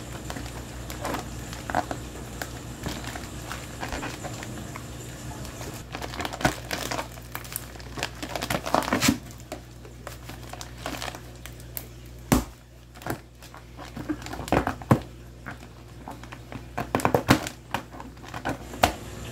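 Plastic fish-shipping bag crinkling and rustling in irregular bursts as hands work at its tightly knotted, rubber-banded neck to untie it.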